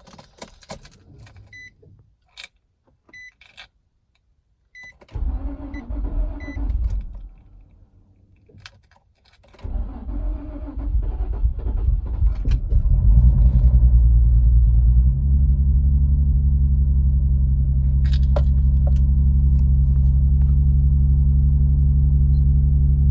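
Keys rattling and a few short chimes. Then the Infiniti G35's 3.5-litre V6 is cranked by the starter for about two seconds without starting. A second, longer crank makes it catch, and it rises and settles into a steady idle. The hard start is blamed on a failing crankshaft position sensor.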